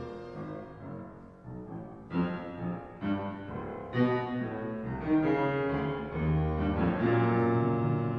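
Piano quintet playing: piano notes and chords struck over sustained bowed strings. The ensemble grows louder from about two seconds in, with several sharp piano attacks.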